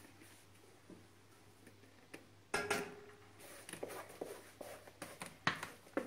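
Thick cake batter being tipped from a plastic mixing bowl into a glass baking dish: a quiet start, then from about two and a half seconds in a run of irregular knocks and soft thuds as the bowl is handled and the batter drops, the loudest near the end.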